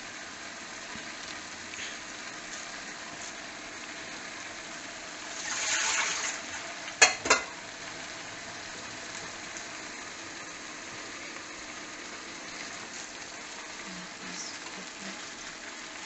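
Pork, cabbage and glass noodles cooking in a pot, a steady sizzling hiss. About six seconds in a swell of rushing noise rises and fades, followed by two sharp knocks a moment later.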